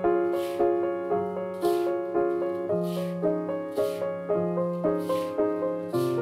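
Background music: a piano playing notes at a steady, unhurried pace.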